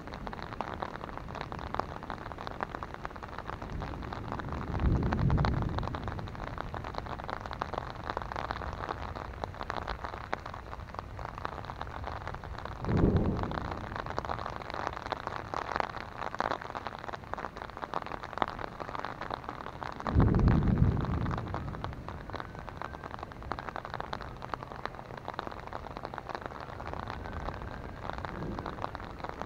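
Rain pattering steadily on an umbrella overhead, a dense stream of small drop hits. Three short, low rumbles of thunder rise above it, about five, thirteen and twenty seconds in.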